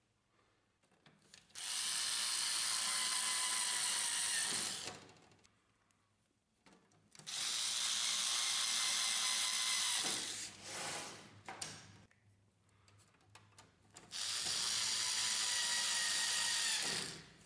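Small cordless electric screwdriver driving three screws into a printer's plastic rear panel: three separate runs of steady motor whine, each about three seconds long, with quiet pauses between them and a few short clicks after the second run.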